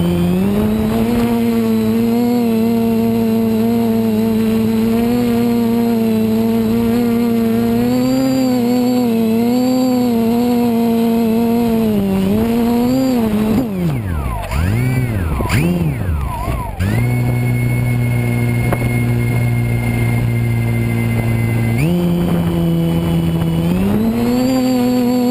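Quadcopter's electric motors and propellers whining steadily, the pitch climbing at the start as the throttle comes up. About halfway through the pitch swoops down and up several times with the throttle, then holds lower for several seconds before climbing back near the end.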